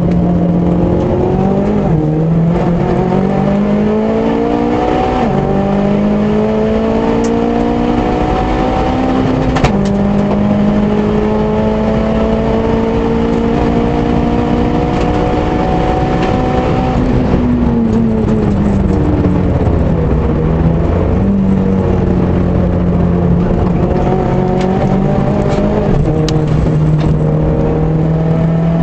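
Mk1 Audi TT's engine under full throttle, heard inside the cabin. The revs climb and drop back at each upshift, three times in the first ten seconds, then hold high. About seventeen seconds in the revs fall away as the car brakes and shifts down, then the engine pulls steadily again.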